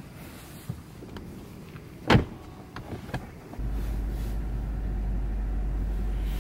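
A car door shuts with a single loud thump about two seconds in, followed by a few light clicks. Then, from about three and a half seconds, a steady low rumble of the car starts.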